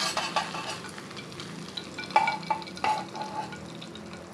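Fried egg sizzling in a small non-stick frying pan while a utensil scrapes under it, with sharp metallic clinks of utensil on pan about two and three seconds in.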